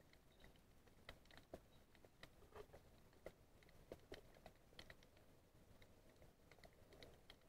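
Faint underwater ambience heard through a camera's waterproof housing: a low rumbling murmur of water with scattered irregular clicks and ticks, a few each second.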